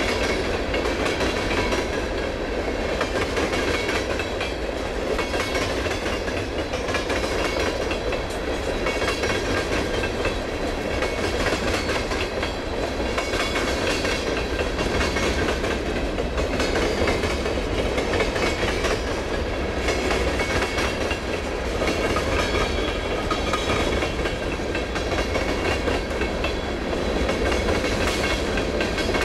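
Freight train of covered hopper and tank cars rolling past at a steady speed, with a continuous rumble of steel wheels on the rails and clacking over the rail joints.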